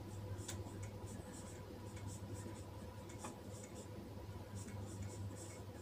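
Marker pen writing on a whiteboard: a run of short, quick, faint strokes over a steady low hum.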